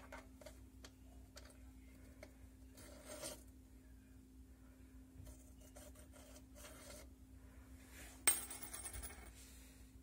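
Quiet handling noise of metal washing-machine parts: small clicks and rubbing as the transmission shaft and seal are handled on the sheet-metal tub base, then one sharp metallic clink about eight seconds in that rings briefly.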